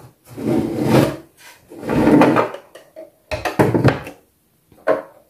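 Plastic Sylvanian Families Bluebell Cottage toy house being dragged and turned on a tabletop: two rough scraping swells, then a quick cluster of knocks and clatter.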